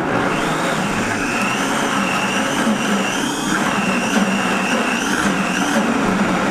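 Blender running loud on a thick raw ice-cream base of soaked cashews and coconut meat, its motor whine wavering up and down in pitch as the dense mixture churns.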